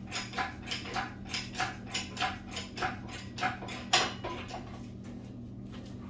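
Rhythmic metallic clicking, about three clicks a second, from the engine hoist as the engine is raised, stopping about four seconds in, over a steady low hum.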